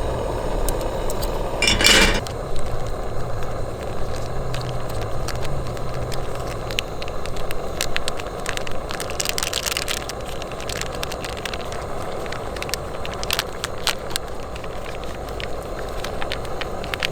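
Wood campfire crackling, with scattered sharp pops over a steady rustling background.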